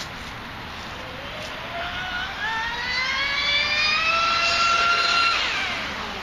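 Brushless electric motor of a Drifter MK2 RC speedboat (Leopard 4074, 2150kv) running at high speed, a whine that rises steadily in pitch and grows louder for about four seconds, then drops and fades away about five seconds in.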